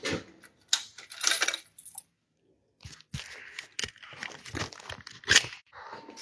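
Irregular rustling, scraping and clicks of a hand-held phone being handled while the person walks, with a brief dead gap about two seconds in.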